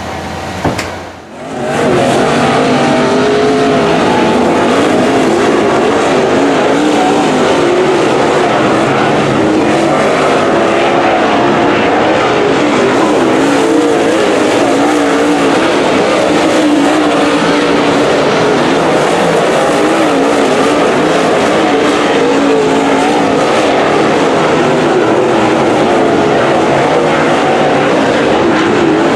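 Dirt late model race car V8 engines running hard on a dirt oval. The loud, continuous sound comes in suddenly about a second in, and its pitch wavers up and down with the throttle.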